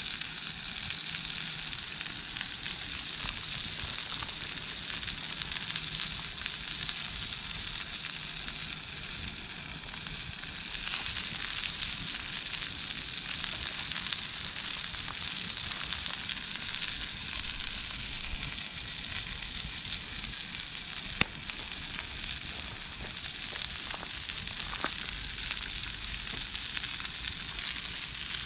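Formed meat sizzling steadily as it cooks over a campfire, with one sharp pop about three-quarters of the way through.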